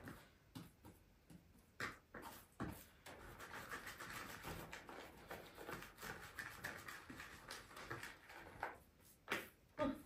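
Hands working soft yeast dough in a plastic bowl: faint rubbing and handling noise with a few light knocks against the bowl.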